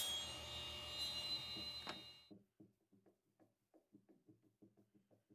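Table saw blade spinning free with a fading whine just after cutting through aluminum, cut off abruptly about two seconds in. Then faint, evenly spaced ticks, about three a second, as a screw is turned by hand with a screwdriver into an aluminum plate.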